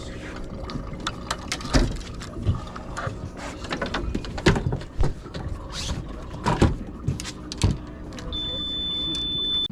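Irregular knocks and clatter over a low steady background. Near the end comes a steady high beep lasting about a second and a half, which stops abruptly.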